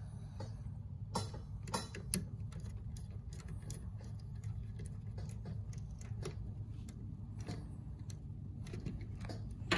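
Irregular small clicks and taps of a screwdriver and crimped wire ends being worked into the plastic screw terminals of a Siemens RDF340 thermostat base, over a low steady hum.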